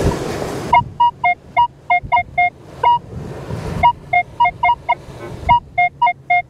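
Minelab Equinox 900 metal detector giving target tones: runs of short beeps that switch between a lower and a higher pitch as the coil sweeps back and forth over a buried target. A rushing noise fills the gaps between the runs.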